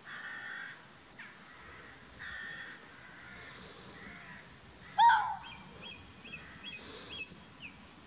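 Red fox barking: a short, loud bark that rises and falls in pitch about five seconds in, and another at the very end.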